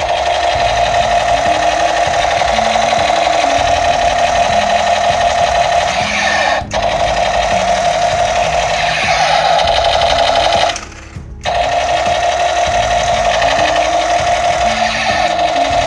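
Battery-powered toy rifle firing on full auto: a loud, steady mechanical buzz with a short dip about six and a half seconds in and a half-second pause about eleven seconds in.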